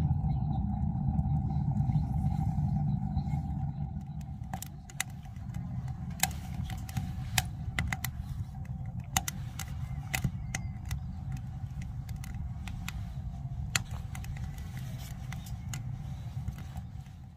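Wood fire crackling inside a G-Stove firewood stove burning logs and pine cones, with sharp irregular pops from about four seconds in. Under it is a steady low rumble, louder for the first few seconds.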